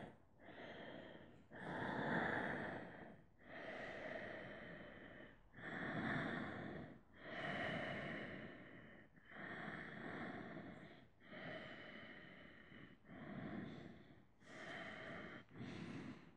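A man's slow, audible breathing, in and out over and over, about ten breaths in all, picked up close by a headset microphone.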